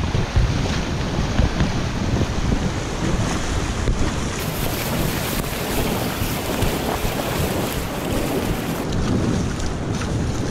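Wind buffeting the microphone over the steady wash of shallow surf.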